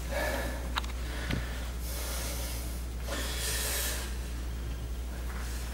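A man breathing hard from the exertion of bodyweight lunges: several forceful breaths, each about a second long, with a light click about a second in.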